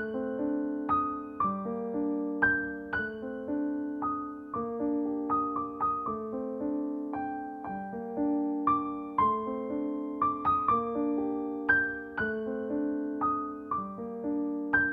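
Background music: a gentle solo piano melody of struck notes that ring and fade, in a steady rhythm.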